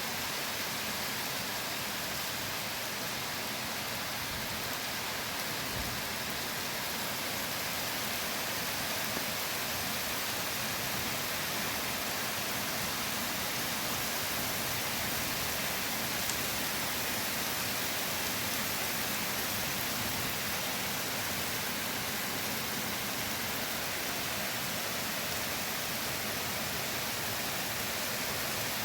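Steady rain falling in a forest, an even hiss of drops on leaves and ground.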